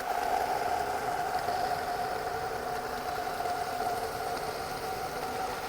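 Rain sound effect: a steady wash of rain noise with a steady droning hum held under it.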